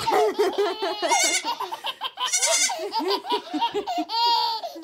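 A baby laughing in a run of short giggles, with adults laughing along.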